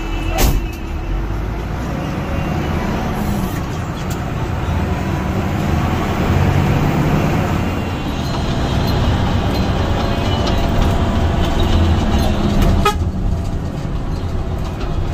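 Hino AK8 intercity bus under way, its engine and road noise heard from the driver's cab, with horn toots.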